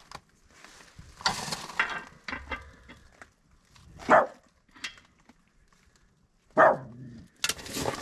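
A dog barking twice, short sharp barks falling in pitch, between bursts of clatter from work on the wheel.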